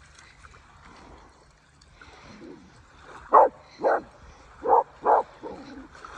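A dog barking in pairs: two short barks about halfway through, then two more a second later.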